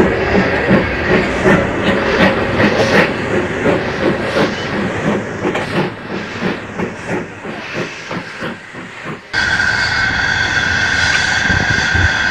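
RhB G4/5 steam locomotive chuffing as it moves off, its exhaust beats coming about two to three a second and growing fainter as it draws away. About nine seconds in this cuts suddenly to a steady steam hiss with a high, thin tone close to the locomotive.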